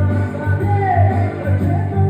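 A singer's voice over amplified band music with a heavy, steady bass line.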